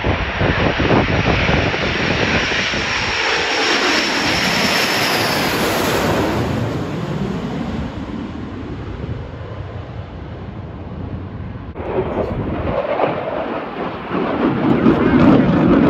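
Blue Angels F/A-18 jets passing low overhead in formation: a loud jet roar with a high whine that falls in pitch as they go by, then dies down. After an abrupt cut about twelve seconds in, another loud jet rumble builds near the end.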